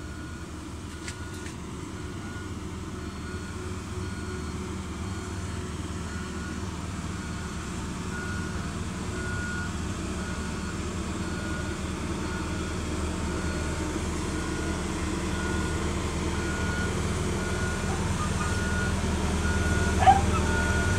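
CAT CS533E vibratory compactor's diesel engine running and growing steadily louder as the machine backs closer, with its back-up alarm beeping at an even pace throughout.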